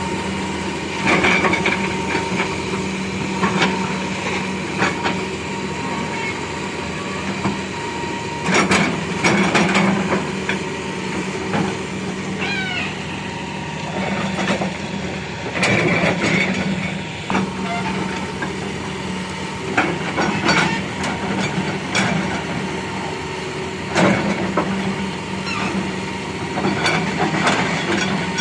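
Excavator's diesel engine running steadily, with irregular loud knocks and scraping from the machine clearing debris.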